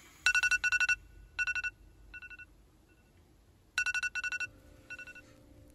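Wake-up alarm beeping: quick runs of high electronic beeps that grow fainter, then start over loud about three and a half seconds later.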